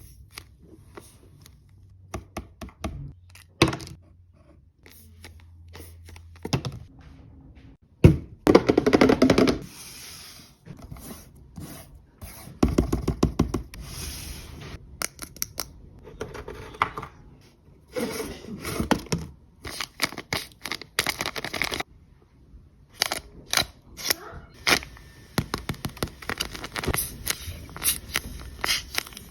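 Paper crafting: scissors snipping paper, with paper rustling and crinkling, and taps and light knocks as the pieces are handled.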